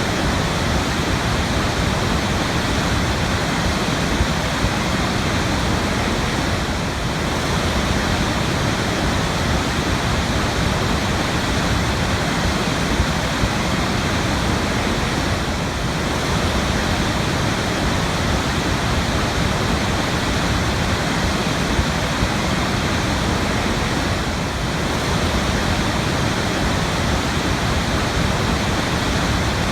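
Waterfall: steady, unbroken rush of falling water.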